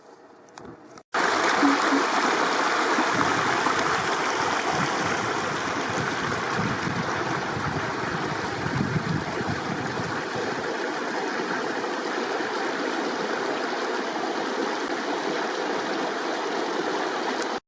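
Steady rush of flowing river water. It starts abruptly about a second in and holds even until it cuts off just before the end.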